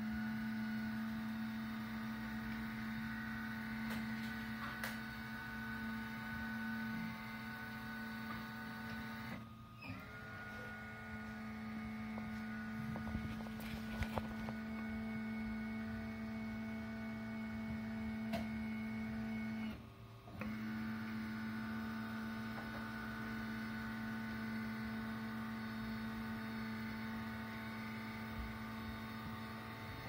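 Dentamatic 500MX ceramic furnace's lift motor running with a steady hum as it drives the firing platform up and down, breaking off briefly about every ten seconds at each end of travel before starting again. A few light clicks come about halfway through.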